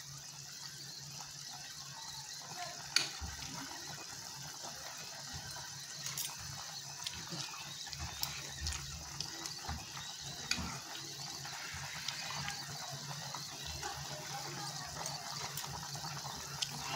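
Pot of pork and corn soup boiling, a steady bubbling with a constant low hum under it. A few sharp clicks are scattered through, the loudest about three seconds in.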